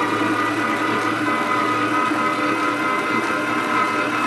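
Electric stand mixer running steadily, its motor whining with a dough hook kneading bread dough in a stainless steel bowl.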